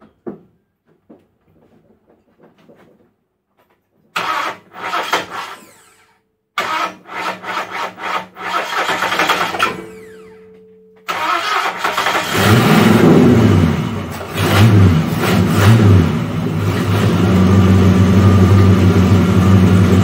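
1977 Ford XC Falcon's 351 Cleveland V8 with a 750 Holley carburettor cranked over by the starter in two spells, then catching about eleven seconds in. It is revved up and down a few times, then settles into a steady fast idle, running on fuel picked up from its freshly reinstalled tank.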